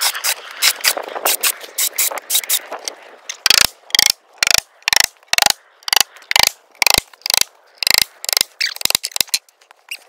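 A chalk line reel being cranked to wind its string back in, its ratchet clicking rapidly for the first few seconds, then in regular bursts about twice a second until shortly before the end.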